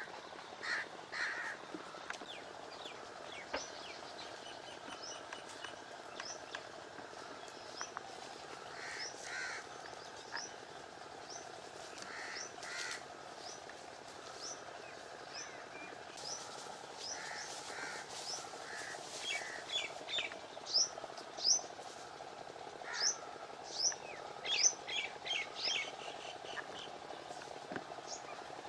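Birds calling and chirping in the trees: short, sharp repeated calls, scattered at first and coming thick and fast in the last third, over a steady background hum.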